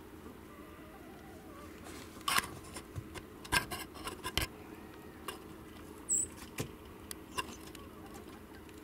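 A string of irregular sharp clicks and light clinking ticks, about a dozen, starting about two seconds in and stopping about seven and a half seconds in, over a faint steady hum, with one brief high chirp near six seconds.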